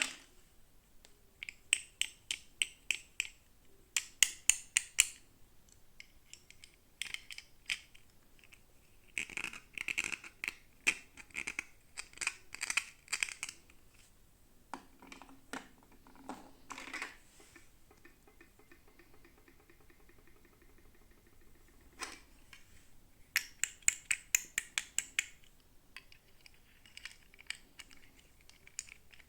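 Hands unboxing toy packaging: clusters of quick, crisp plastic taps and clicks, about four or five a second, mixed with stretches of crinkling and rustling.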